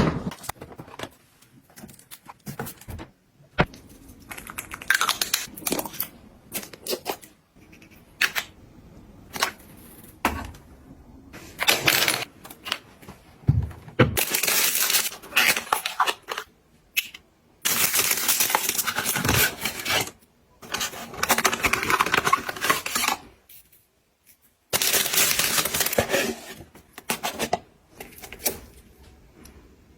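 Small containers and packages being handled and set down: scattered clicks and taps, with several stretches of rustling or tearing packaging lasting a second or two each.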